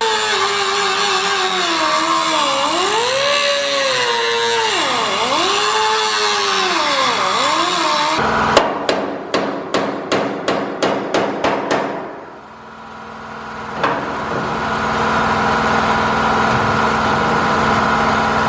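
Air-powered cut-off wheel grinding through the steel hinge tab of a Fox-body Mustang door, its whine sagging and recovering in pitch as it bites. About eight seconds in it stops and a hammer strikes the hinge about a dozen times, roughly three blows a second. After a short lull a steady mechanical hum follows.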